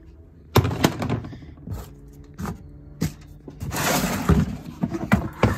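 Tools and parts clattering and knocking as someone rummages through a storage container, a dozen or so sharp knocks with a stretch of scraping and rattling a bit past halfway.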